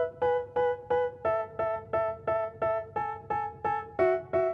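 Background music: a piano-like keyboard striking the same chord about three times a second, the chord changing about a second in and again near the end.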